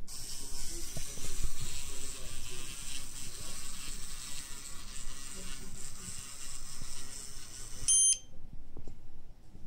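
LEGO micro-motor driving a mini train along plastic track, a steady high whir of the small motor and gears. About eight seconds in, a short high beep from the RFID tag reader as it reads the train's tag, and the motor stops at once.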